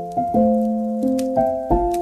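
Soft piano-like background music: a slow run of single notes and chords, each struck and left to ring out. Faint crackles of a burning wood fire sound beneath it.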